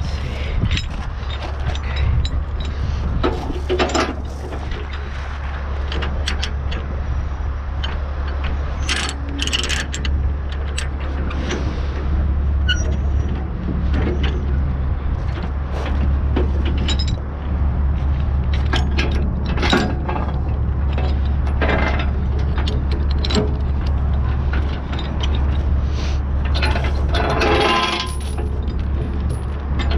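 Steel transport chains clanking against a lowboy trailer and a ratchet load binder being cranked to tension the chain, in scattered clanks and clicks, with a longer run of ratcheting near the end. A steady low drone runs underneath.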